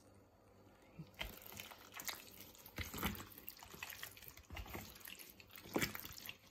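Wet squelching of raw pork chunks in a sticky tocino marinade as a gloved hand squeezes and turns them in a foil tray, in irregular bursts beginning about a second in.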